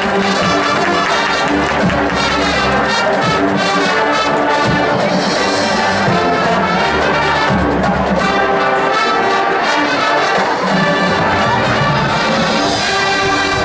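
Marching band playing loudly: a full brass section of trumpets and trombones carrying sustained chords and melody over a steady drumline pulse, in a funk arrangement of classical music.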